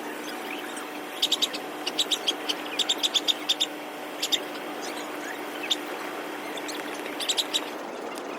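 Bird chirps: short, sharp calls in quick clusters, several times, over a steady low hum.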